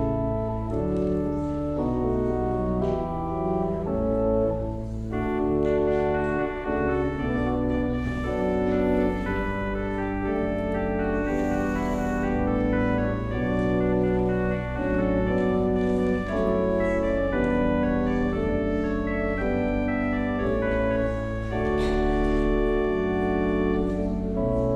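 Organ playing slow music in held chords over a sustained bass line, the chords changing every second or so.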